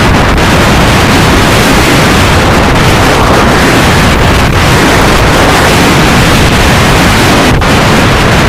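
Strong wind blasting on the microphone in a steady, loud rush, with heavy surf churning and crashing in a narrow rocky sea inlet underneath.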